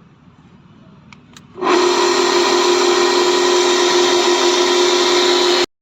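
Sliding-gate gear motor starting about one and a half seconds in and running with a loud, steady hum, then cutting off suddenly near the end. Two faint clicks come just before it starts.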